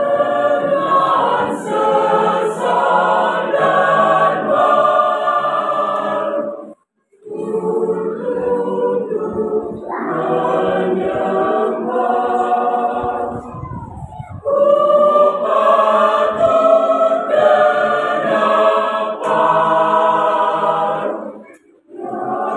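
Mixed choir of women's and men's voices singing a choral piece in parts, unaccompanied, in three long phrases with short breaks between them.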